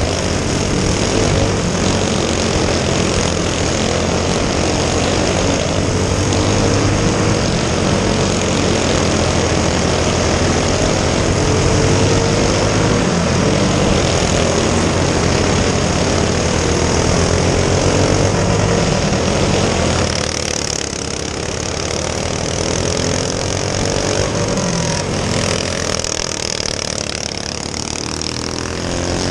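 Small single-cylinder four-stroke racing go-kart engine running hard on a dirt oval, its pitch rising and falling through the laps. About twenty seconds in, the deep low drone drops away and the engine sound turns thinner.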